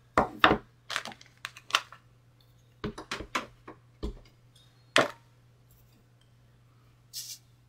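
Clear acrylic stamp block and ink pad being handled: a run of short, sharp clicks and taps as the rubber stamp is tapped onto the ink pad and the block is set down on the table, with a brief brushing hiss near the end.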